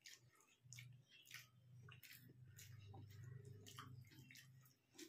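Very faint eating sounds: small wet clicks and squishes of fingers working rice in a steel plate and of chewing, with a faint low hum through the middle.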